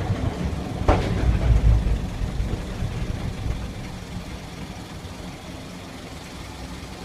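Replica NZR Model T Ford railcar rolling slowly on rails with a low rumble and a single clank about a second in. The rumble then dies down to a quieter, steady engine sound over the last few seconds as the car slows.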